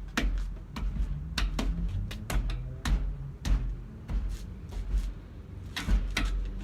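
A quick, irregular run of sharp slaps and knocks, about a dozen, from hands and forearms striking and parrying as a kung fu hand set of palm strikes and PAK SAO is performed, over a low steady rumble.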